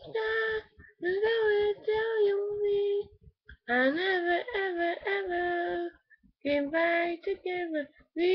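A young girl singing unaccompanied in a high voice, holding long notes in three phrases with short breaths between.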